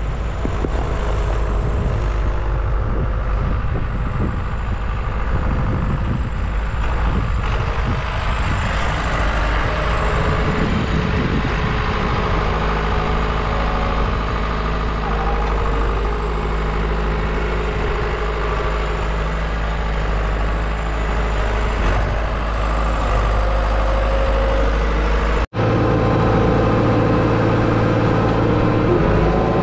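Farm vehicle engine running steadily, with a small shift in its note part way through. The sound breaks off for an instant about 25 seconds in, then carries on.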